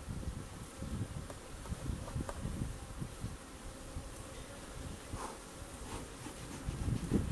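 Honey bees buzzing over the open hive's frames: a steady hum with brief louder passes of single bees about five and six seconds in.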